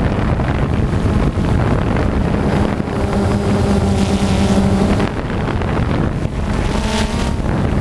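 FPV quadcopter's electric motors and propellers whining steadily, the pitch shifting with throttle about five seconds in and again near the end, over wind rushing across the microphone.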